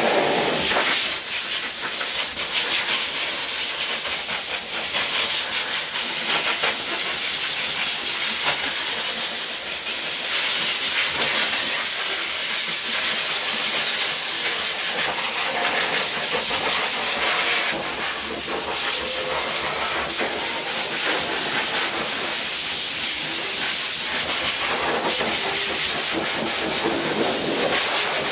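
High-velocity pet dryer blowing air from its hose nozzle into a wet dog's coat: a loud, steady rushing hiss.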